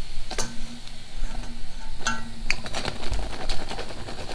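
Wire spider skimmer scraping and clinking against an iron kadai as fried dal vadas are scooped out of hot oil, over a steady hiss of the oil. A few sharp clinks come first, then a quick run of small clicks near the end.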